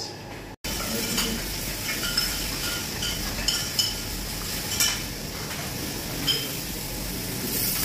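Food sizzling in a pan while metal utensils clink against pans and dishes, with about five sharp clinks spread through the steady sizzle.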